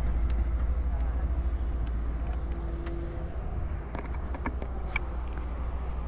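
Steady low rumble of heavy diesel machinery running, from a dump truck and a wheeled excavator, with a few faint clicks after about four seconds.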